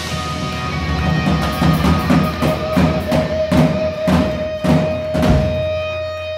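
Live rock band playing: drum kit hitting about twice a second under electric guitars and bass, with a single guitar note held from about halfway. The drums stop shortly before the end, leaving the held note ringing.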